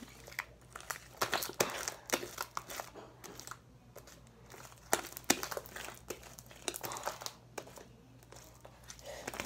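Hands kneading and squeezing sticky homemade slime in a plastic tub: irregular wet squelches with many sharp little pops and clicks.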